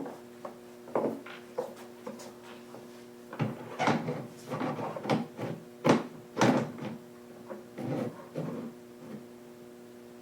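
Scattered knocks, taps and clunks, the loudest about six seconds in, from hard objects being handled and set down on a workbench, over a faint steady electrical hum. The router is not running.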